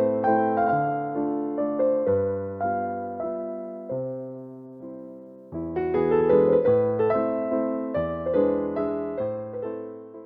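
Background piano music, chords with notes struck and left to ring, dying away briefly about halfway through before resuming, then ending near the close.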